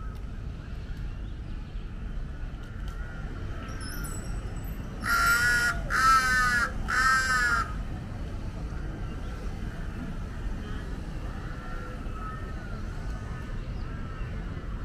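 Crow cawing three times in quick succession about five seconds in, each caw loud and under a second long, over a low steady background rumble.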